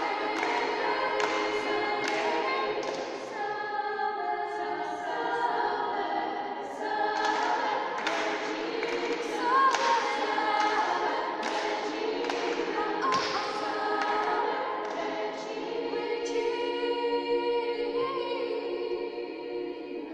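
Mixed youth choir singing, the voices ringing in a reverberant church.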